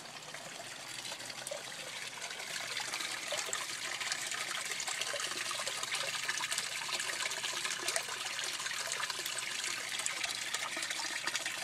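Water trickling and splashing steadily into an aquaponics fish tank, the surface rippling with small bubbles; it grows slightly louder over the first few seconds, then holds steady.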